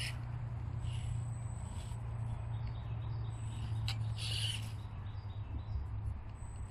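Harsh bird calls, three short ones with the loudest a little after the middle, over a steady low rumble, with one sharp click just before the loudest call.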